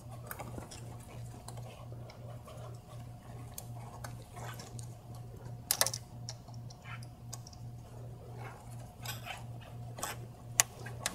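Hose clamp pliers and a spring clamp on a rubber low-pressure fuel line: scattered small clicks and metallic ticks, with a sharper click about six seconds in and two more near the end. A low pulsing hum runs underneath.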